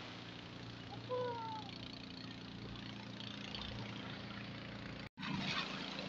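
An engine idling steadily. A short high call glides slightly downward about a second in, and the sound cuts out for an instant just after five seconds.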